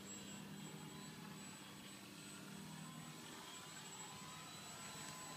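Motor and propeller of a remote-control flying lawnmower model aircraft, a faint steady hum with a thin high whine above it.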